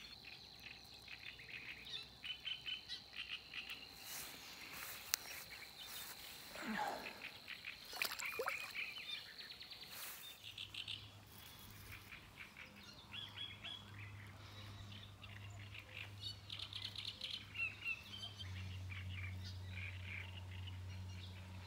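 Small birds chirping and calling over and over, with a thin steady high whine in the first half. A low steady hum comes in about halfway and grows louder near the end.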